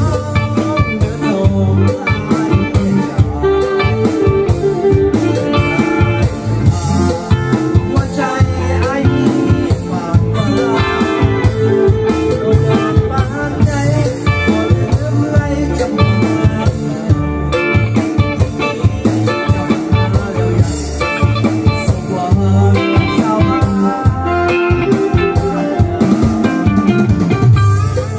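Live band music: electric guitar and keyboard over a steady beat, with a male singer singing into a microphone for much of it.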